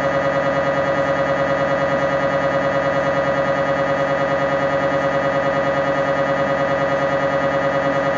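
MRI scanner's gradient coils sounding loudly during a scan sequence: a steady, high-pitched buzzing tone that pulses rapidly and evenly.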